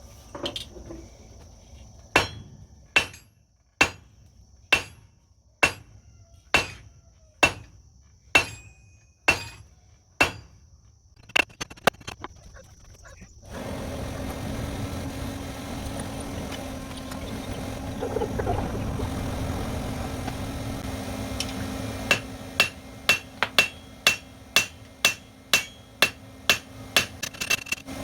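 Hammer blows on metal, each with a short metallic ring, about one a second. Then a steady hum comes in, and near the end a quicker run of blows at two to three a second.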